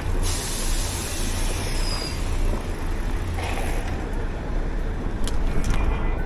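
Wind buffeting the microphone with a low rumble and hiss during a mountain-bike ride in a sandstorm, with a few sharp clicks near the end.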